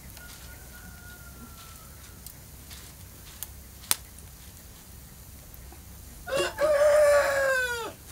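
A rooster crows once near the end: a short first note, then a long held note that falls away at its close. A single sharp click comes about four seconds in.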